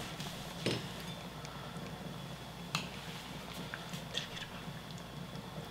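Water with radish and mackerel pieces simmering gently in a frying pan: a soft steady hiss with a few faint ticks and pops, the clearest just under a second in and near three seconds.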